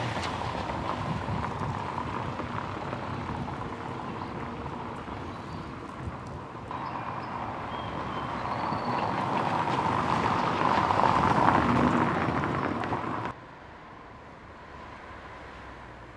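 SEAT Mii city car driving by on a paved street: engine and tyre noise over street ambience. It grows louder to a peak about 11 to 12 seconds in, then cuts off abruptly to quieter street ambience. There is another abrupt change about 7 seconds in.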